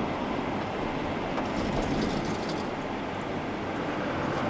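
Steady road and engine noise heard from inside a vehicle's cabin while driving along a highway, with a few faint clicks about two seconds in.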